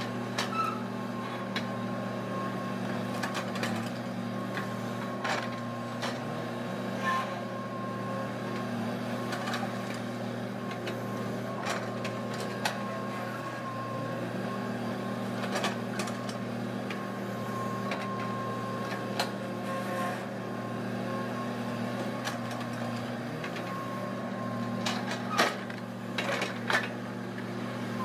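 Sumitomo SH210 hydraulic excavator's diesel engine running steadily under load with a thin steady whine, and scattered knocks and clanks as the bucket digs soil and loads a dump truck, the sharpest about 25 seconds in.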